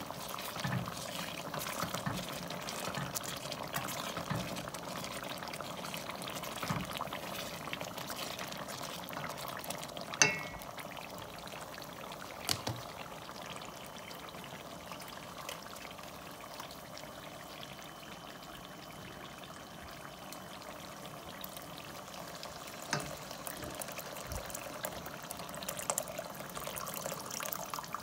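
Thick sauce simmering and bubbling in a stainless steel pot, with a wooden spoon stirring through it at first. A sharp clink with a brief ring about ten seconds in, and a couple of fainter knocks later.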